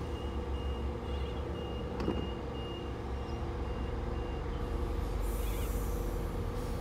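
Queensland Rail electric multiple-unit train standing with its doors shut, ready to depart: a steady low hum from the train, with a high beep repeating in short even pulses for the first four seconds or so. About five seconds in, a short hiss of air.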